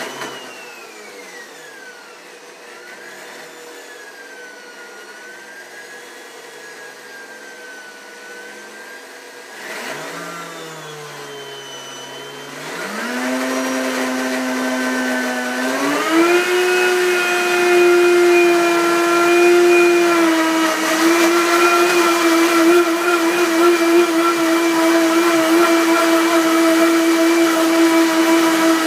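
Countertop blender running its preset smoothie cycle, blending a smoothie: the motor's whine wavers at a lower speed for about ten seconds, then steps up in speed, reaching full speed about sixteen seconds in and holding steady and loud.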